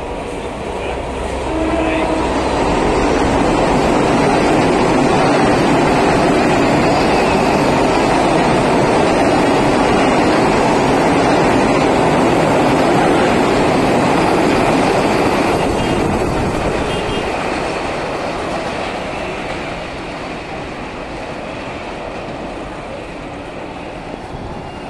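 A train running past close by on the tracks below. Its rumble swells about two seconds in, stays loud for some twelve seconds, then fades away to a lower steady noise.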